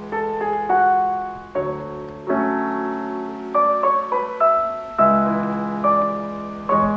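Background music: slow solo piano, single notes and chords struck about once or twice a second and left to fade.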